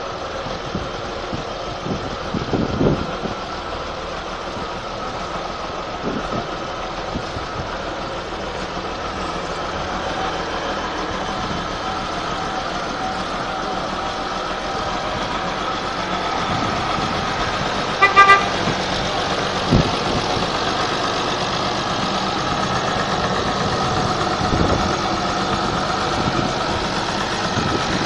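Belarus 1221 tractor's six-cylinder diesel engine running steadily and slowly getting louder, with a short horn toot about two-thirds of the way through and a few dull thumps.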